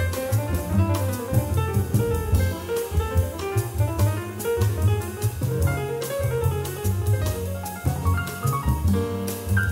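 Small-group jazz playing, with piano, double bass and drum kit, a run of quick notes over a walking low bass line.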